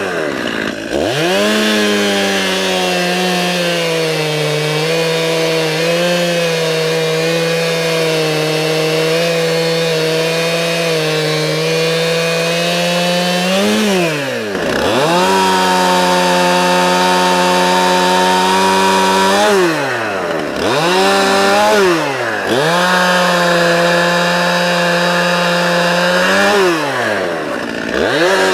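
Stihl chainsaw cutting through an ash log at full throttle, its freshly hand-filed chain throwing chips. The engine briefly drops off and revs back up several times between cuts.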